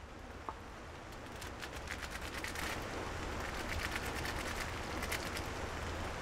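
Dense irregular crackling over a steady hiss, fading in and growing louder through the first few seconds.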